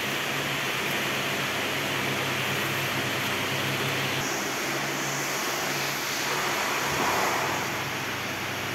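Steady rushing background noise with a low, even hum underneath, changing slightly in tone about four seconds in.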